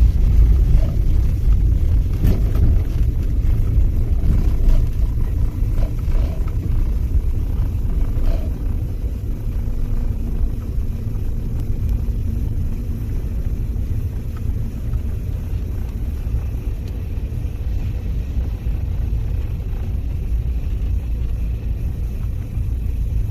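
Low, steady rumble of a Gonō Line train running along the track, slowly fading, with a few light clicks in the first several seconds.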